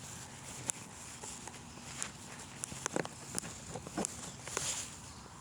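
Scattered light taps and knocks at uneven intervals over faint outdoor background hiss.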